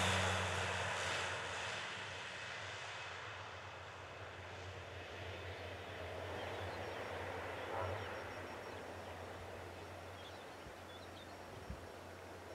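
Air Tractor crop-spraying airplane flying low and away: its engine and propeller drone drops in pitch and fades over the first few seconds, then goes on as a steady, fainter drone.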